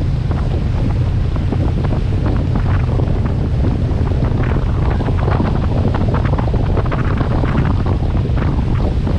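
Heavy wind buffeting the microphone aboard a motorboat running fast, with rushing, splashing water. The steady low rumble is broken by many short gusts and splashes.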